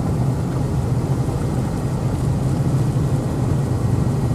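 A vehicle driving along, with a steady low rumble of engine and road noise.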